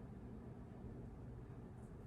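Faint, steady low background noise with a slight hum: quiet room tone, no distinct sounds.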